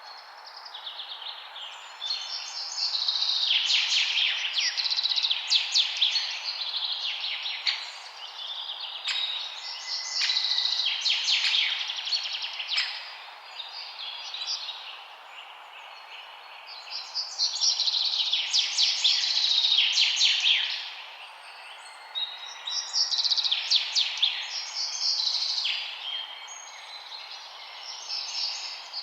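Songbirds singing in bouts of rapid high chirps and trills, several seconds at a time with short lulls between, over a steady background hiss.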